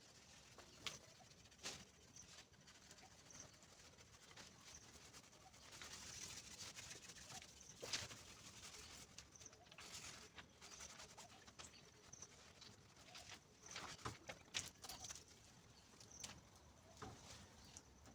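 Near silence with faint background hiss and a few scattered soft clicks and taps.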